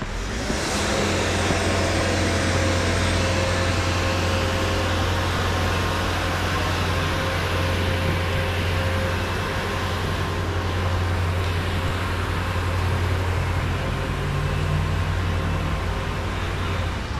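Steady low mechanical rumble with a hiss over it. It comes up about half a second in and holds at a steady level.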